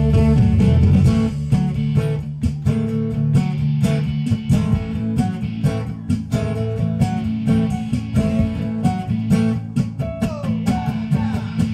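Acoustic guitar strummed over sustained keyboard chords with low held notes: an instrumental passage with no singing.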